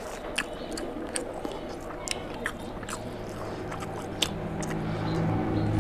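Close-miked eating: chewing with sharp, wet mouth clicks at irregular intervals as rice and mutton curry are mixed and eaten by hand. A low hummed voice comes in near the end.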